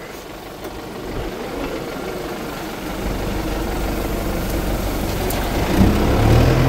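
Kubota farm tractor's diesel engine running, growing steadily louder, with its steady low engine note coming through clearly near the end.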